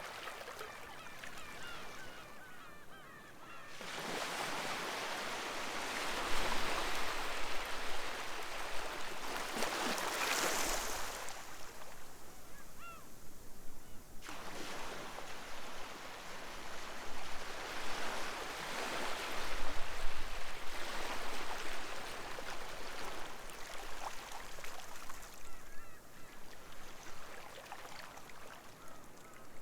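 Sea waves washing onto a beach in two long surges, with gulls calling: a cluster of calls at the start and a few more between the surges and near the end.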